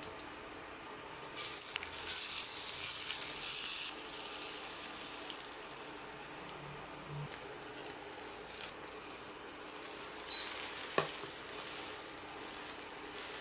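Food sizzling in a hot pan. The hiss starts suddenly and loud about a second in, eases after a few seconds into a steadier sizzle, and swells again near the end, with one sharp click.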